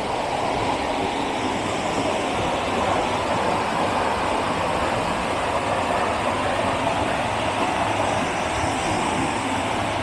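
Small river waterfall: a steady, unbroken rush of falling water.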